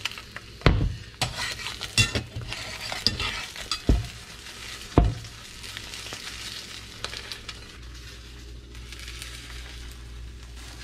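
Fried eggs sizzling in a hot cast iron skillet, with about five knocks and thumps in the first five seconds as the heavy pan is moved and tilted; after that only a steady sizzling hiss.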